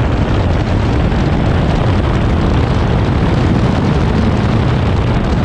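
Steady, heavy wind buffeting on the microphone mixed with the engine of a 2008 Honda S2000 CR accelerating hard from about 47 to 67 mph.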